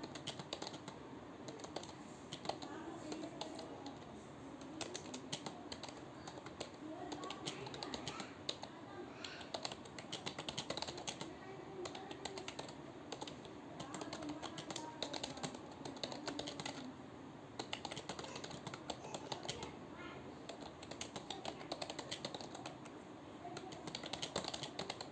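Computer keyboard being typed on quickly, a steady run of rapid keystrokes with short pauses between bursts.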